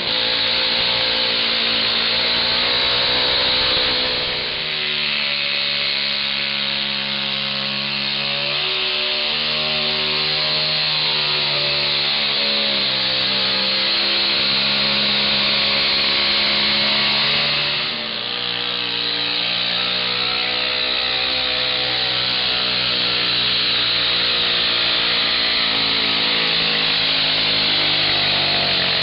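Modified garden tractor engines running flat out under load as they drag a weight-transfer pulling sled, a steady high-revving drone whose pitch drifts as the load builds. It dips briefly about four seconds in and again near the middle, where it picks up at a different pitch.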